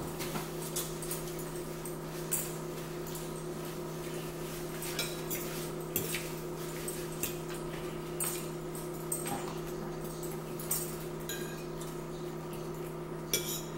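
A metal fork clicking and scraping on a plate, with scattered short clicks and mouth sounds of eating, over a steady low hum. The sharpest clicks come near the end.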